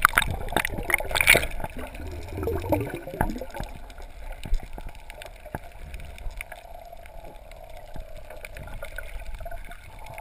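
Water gurgling and bubbling as heard through a submerged camera, louder in the first three seconds, with many small clicks and a faint steady hum through the rest.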